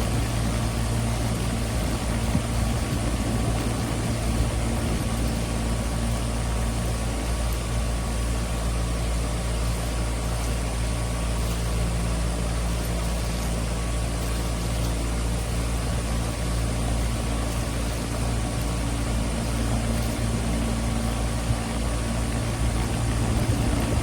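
Central air conditioner's outdoor unit running, a steady low mechanical hum with no change throughout.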